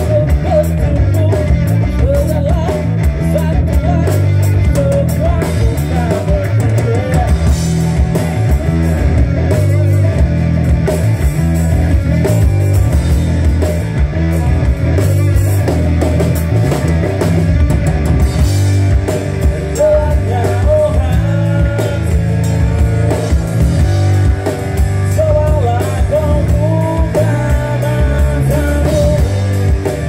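Live band playing a funky rock jam through a PA: electric bass guitar to the fore, a drum kit keeping a steady beat, and a vocalist singing into a microphone.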